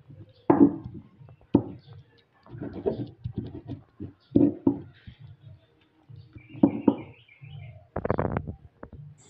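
Stone pestle (ulekan) working chili sambal in a stone mortar (cobek): a series of uneven grinding and pressing strokes with short pauses between them, the strongest near the end.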